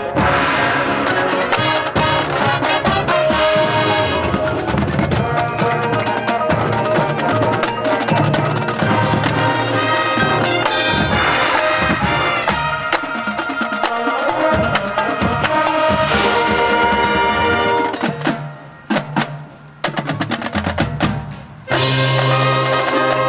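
Marching band playing its field show: brass over drums and front-ensemble mallet percussion. About eighteen seconds in, the music thins to a few sparse percussion strikes, then the full band comes back in loud near the end.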